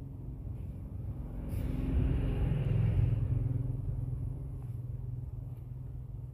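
A road vehicle passing: a low rumble that builds to its loudest two to three seconds in, then fades.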